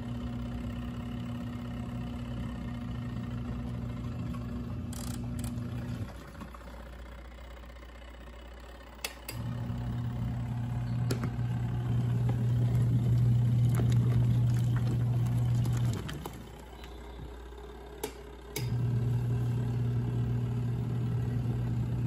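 ZENY mini twin-tub washing machine's wash motor churning pillowcases in soapy water, humming in spells of several seconds with pauses of about three seconds between them, as the pulsator stops and changes direction. A short click comes just before each restart.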